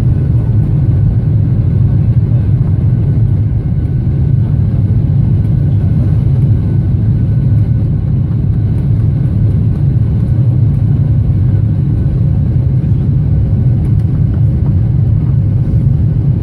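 Airliner's jet engines at takeoff power, heard inside the cabin from a window seat beside the engine: a steady, loud, low-pitched noise through the liftoff and initial climb.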